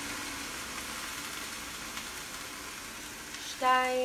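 Boiling water pouring from an electric kettle into a glass measuring cup, a steady hiss that slowly fades. A brief voice sounds near the end.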